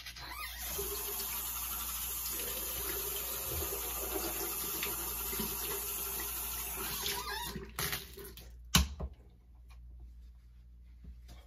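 Water running steadily from a bathroom sink tap for about seven seconds, then stopping, with a sharp knock about a second later.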